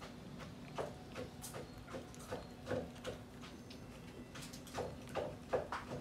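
Macaques' mouth sounds while eating: soft, irregular smacks and clicks, one or two a second, bunching together near the end, over a faint steady hum.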